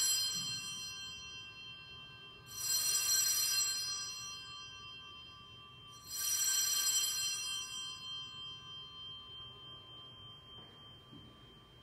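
Altar bells rung at the elevation of the host during the consecration: a ring already fading at the start, then two more rings about three and a half seconds apart, each a cluster of bright high tones that rings on and slowly dies away.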